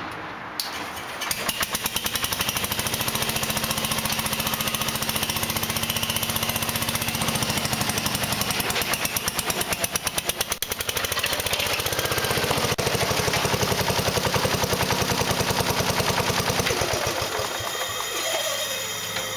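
1970 Jacobsen Chief 1200 garden tractor engine cold-started after sitting a week at about 28 °F. It catches within about a second and runs with a steady, even beat. Near the end the engine sound drops off.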